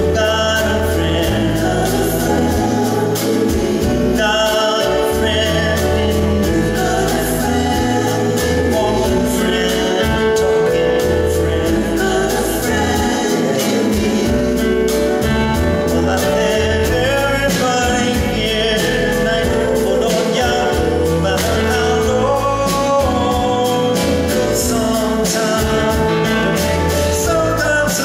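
Live acoustic song: steel-string acoustic guitar with band accompaniment under singing voices, carrying on without a break.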